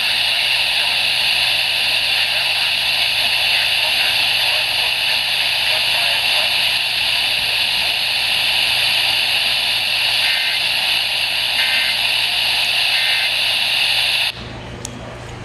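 Weather radio receiver hissing with steady static from a channel with no clear signal; the static cuts off suddenly near the end.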